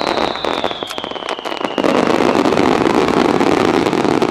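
Starmine fireworks bursting: rapid cracks and pops, a high whistle falling in pitch through the first couple of seconds, then a dense, loud crackling from about two seconds in.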